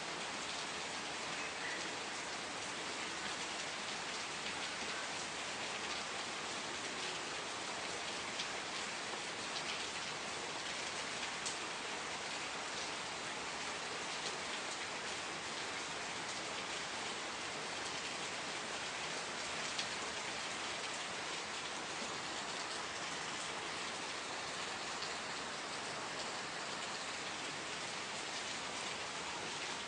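Steady rain falling, an even hiss of dense drops with a few sharper drop ticks standing out now and then.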